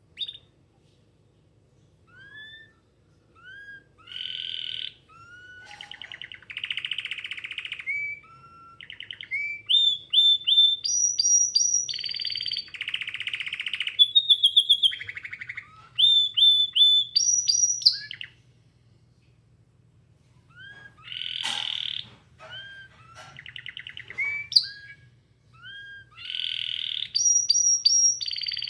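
Domestic canary singing: runs of short rising whistled notes and fast rolling trills, with a break of about two seconds past the middle before the song resumes. A faint low hum lies underneath.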